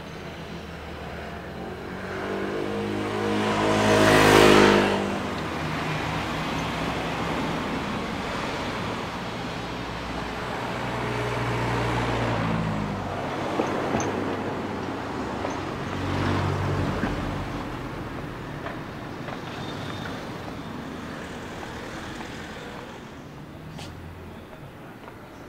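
Street traffic with motor vehicles driving past. One passes close about four seconds in and is the loudest, and more cars go by more faintly later on.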